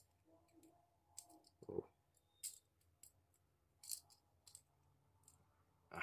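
Faint, scattered clicks and snips of a small yellow-handled cutter working at the end of a coaxial cable, trimming the braided silver shield wires.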